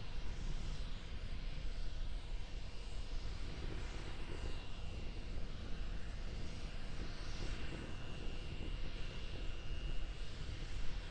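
Steady, distant low rumble with a crackle, the sound of Starship SN10's Raptor rocket engine heard from the ground while the prototype hovers high overhead on a single engine.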